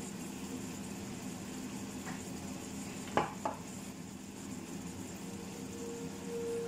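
A ladle clinks twice against crockery about three seconds in, as béchamel sauce is ladled over pasta in a glass baking dish, over a steady background hum.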